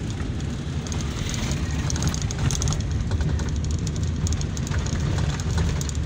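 Engine and road noise heard from inside a moving car: a steady low rumble with a higher hiss over it.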